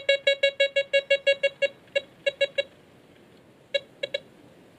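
Desert Gold 3 metal detector sounding its target tone in rapid short beeps, about eight a second, as it picks up a thin silver ring near its coil. The beeps then thin out into a few scattered ones, with a pause of about a second midway.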